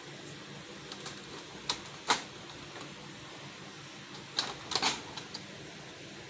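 Plastic buttons clicking as they are pressed on a Brother DCP-T820DW printer's control panel: a couple of sharp clicks about two seconds in, then a quick run of clicks near the five-second mark, over a steady low hiss.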